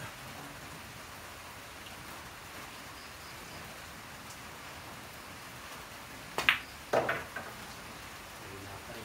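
A pool cue strikes the cue ball with a sharp click. About half a second later come the clack of the cue ball hitting an object ball, then a softer knock as the ball is potted. A steady hiss runs underneath.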